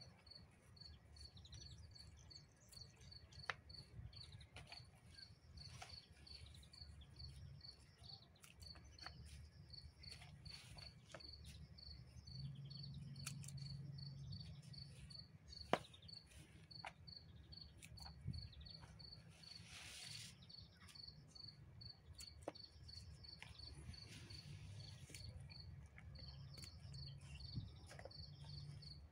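A faint cricket chirping steadily, short high chirps about twice a second, over scattered small clicks and rustles of pennyroyal stems being pulled apart by hand.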